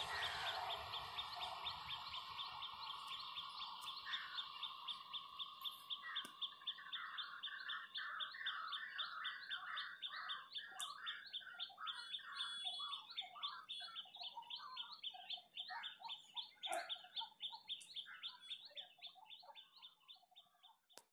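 Birds singing: a fast, even run of high chirps, with other birds warbling lower from about six seconds in. In the first few seconds the rumble of a receding train fades away under them.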